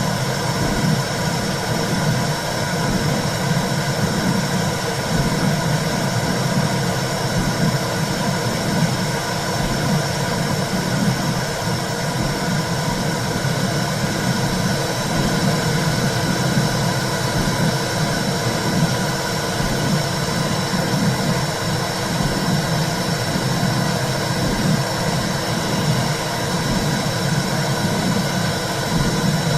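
Womb sound: a steady low rumbling whoosh, like blood flow heard inside the uterus, with an uneven swelling in the low rumble.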